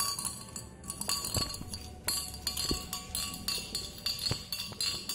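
A metal spoon stirring water in a cut-glass tumbler with a stone in it, clinking against the glass again and again, each clink with a short high ring.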